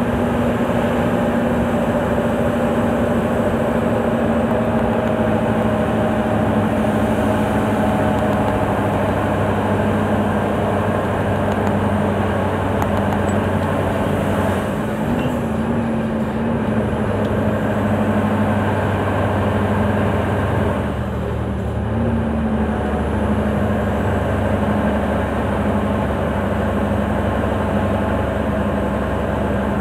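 Scania 164L 580's 16-litre V8 diesel engine running steadily on a downhill run, heard from inside the cab. Its note shifts briefly about halfway through and dips for a moment about two-thirds in.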